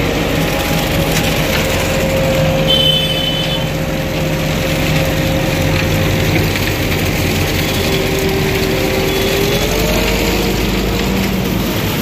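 Diesel engine of an AJAX self-loading concrete mixer running steadily while it discharges concrete, mixed with passing motorbike traffic. A short high-pitched beep sounds about three seconds in.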